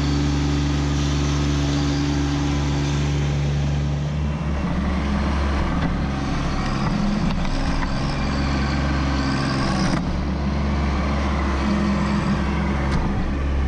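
Kubota B2601 compact tractor's three-cylinder diesel engine running steadily at working revs. From about four seconds in its note wavers and shifts as the front loader works the stump bucket into the dirt.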